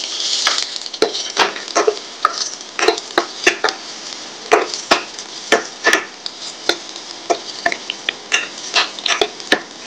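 A spoon stirring chopped vegetables in a stainless steel kadai, knocking and scraping against the pan about twice a second, with a short hiss in the first second.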